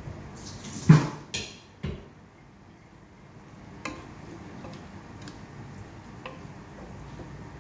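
A sharp kitchen clatter about a second in, followed by a few light knocks of a wooden spatula against a metal cooking pot as squash and other vegetables are stirred.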